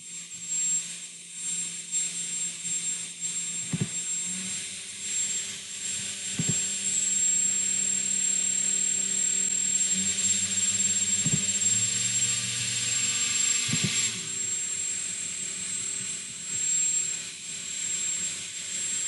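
Electrically driven front and back propellers of a two-degree-of-freedom laboratory helicopter model spinning: a steady whir of air with a high whine, and lower motor tones that step and glide up and down as the rotor voltages are changed. Four sharp knocks sound during the run.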